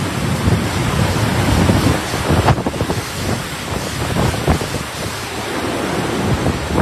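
Loud rushing wind and water, as in a storm, running as a dense, uneven roar with many small gusts and splashes.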